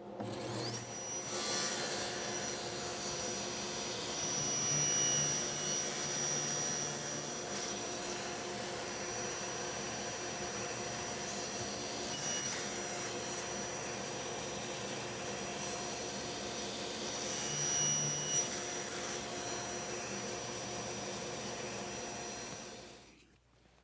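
Table saw starting up and running steadily while a thin wooden strip is crosscut into short pieces on a small-parts sled. The sound swells twice as the blade cuts through the stock, and the saw stops near the end.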